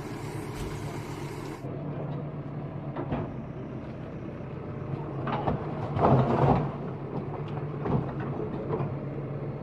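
Bulldozer's diesel engine running steadily during a house demolition, with a few knocks and a louder burst about six seconds in.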